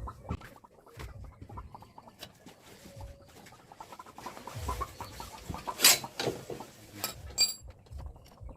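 Chickens clucking in the background, with scattered clicks and knocks of hand tools on the motorcycle's rear wheel. The loudest is a sharp clink about six seconds in, and a ringing metallic clink follows about a second and a half later.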